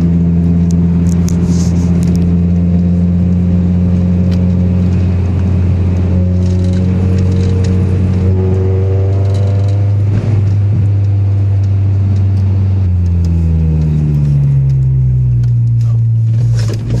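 Car engine with a misfire, running at a steady speed, then its pitch falls from about two-thirds of the way through and rises again near the end. Faint clicks and rattles sound now and then.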